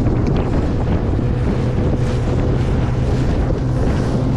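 Bass boat running across the water with a steady engine hum, heavy wind buffeting the microphone over it.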